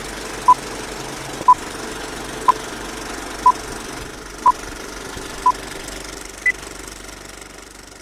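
Film-leader countdown sound effect: a film projector's steady clatter under short beeps once a second, six at one pitch and a seventh higher, with the clatter fading out near the end.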